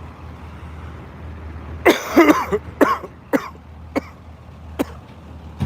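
A person coughing: a burst of several coughs about two seconds in, then single coughs every half second to a second, over a steady low hum.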